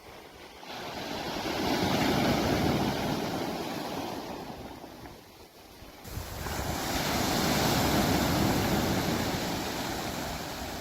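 Sea waves surging in and ebbing away, twice. The first wave builds over a second or two and fades; the second comes in suddenly about six seconds in and slowly dies down. Wind blows across the microphone throughout.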